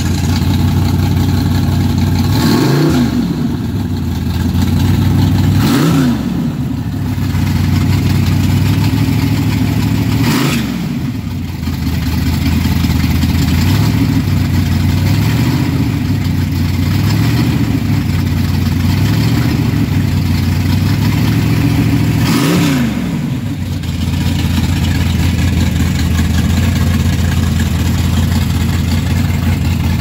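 Studebaker Lark gasser's engine, fed by two four-barrel Edelbrock carburetors, idling steadily and revved briefly four times, each blip rising and falling in about a second.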